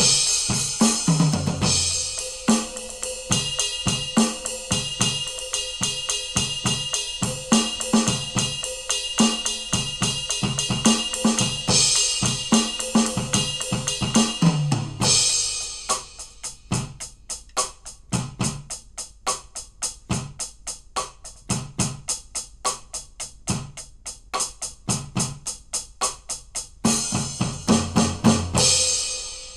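Aroma TDX-21 electronic drum kit played on its Funk Kit preset: a funk groove of kick, snare and cymbals. About halfway through the cymbals drop out and a run of quick, even strokes carries on. The cymbals come back near the end, and the playing stops just as it ends.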